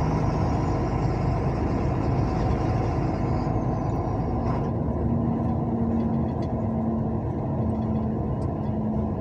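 Steady road and engine noise of a vehicle travelling along a highway. A low engine hum shifts to a higher pitch about halfway through.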